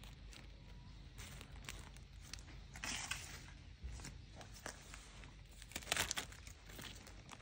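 Clear plastic grafting bags over carob grafts crinkling and rustling as a hand handles them, with louder rustles about three and six seconds in.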